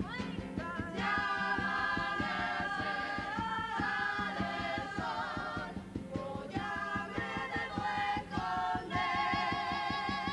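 Carnival comparsa choir singing sustained chords in close harmony over strummed guitars and a fast, steady beat. The chords break off briefly and re-enter several times.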